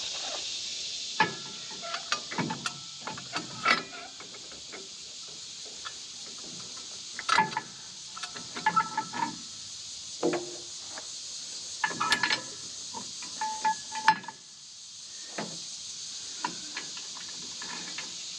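Irregular metal clinks and knocks of a steel bolt being handled and fitted into a mower deck's caster-wheel mount as a stand-in for a lost pin, some clinks ringing briefly. A steady insect chirring runs behind.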